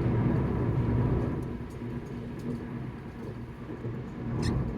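Road and engine rumble heard from inside a moving car, dropping noticeably about a second in and staying lower, as the car eases off.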